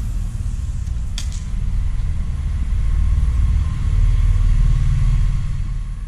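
Deep rumble of road traffic crossing the bridge overhead, growing louder past the middle, with a sharp click about a second in.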